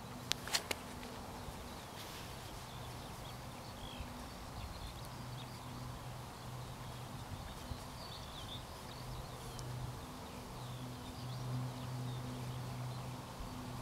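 Meadow ambience: a low steady hum that fades in and out, with faint bird chirps.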